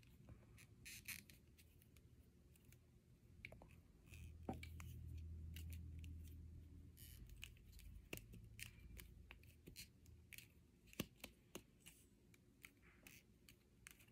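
Faint handling of a robot vacuum's plastic replacement filter: scattered light clicks, scratches and rustles as the filter and its plastic frame are turned over and fitted. A low rumble rises about four seconds in and fades out a few seconds later.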